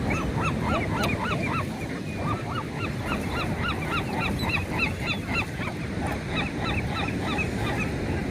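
A flock of birds calling, many short rising-and-falling calls, several a second and overlapping one another, over a steady low rumble of background noise.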